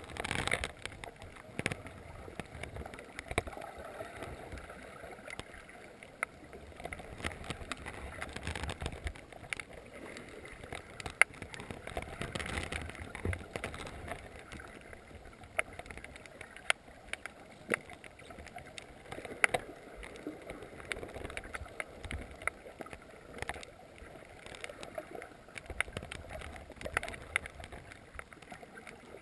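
Underwater reef ambience: a low wash of water noise with many irregular, sharp clicks and crackles scattered throughout.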